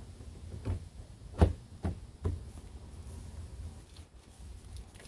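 Plastic lid of an Aerobin compost bin being pressed and knocked into place on the bin: four short dull knocks in the first half, the second the loudest.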